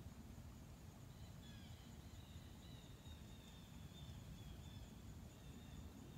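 Near-silent woodland ambience with a faint bird calling in a run of short high chirps over a low background rumble.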